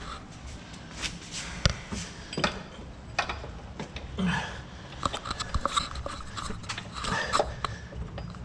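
Scattered metallic knocks, clinks and rubbing as an engine is shifted by hand into position on its mounts, over a steady low hum.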